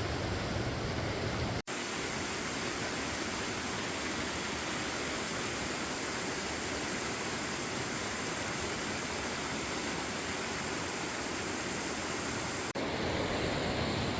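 Creek running high and fast with spring meltwater: a steady rush of water. It cuts out for an instant twice, about two seconds in and near the end.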